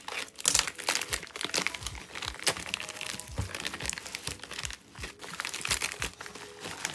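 Plastic bubble-lined courier mailer being pulled open by hand, crinkling and crackling irregularly throughout.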